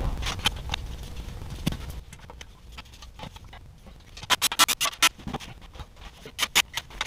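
Hand ratchet clicking in short, quick runs as the bolts of a transmission oil pan are run in, with a few scattered clicks of metal handling first.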